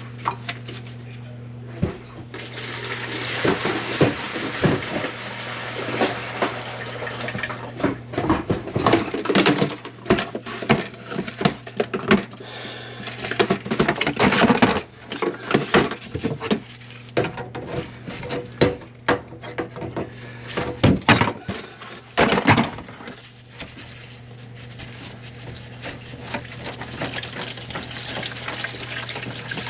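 Metal clattering and rattling with splashing water at a kitchen sink whose drain is plugged with grease, over a steady low hum. The clatter runs dense for about twenty seconds, then dies down.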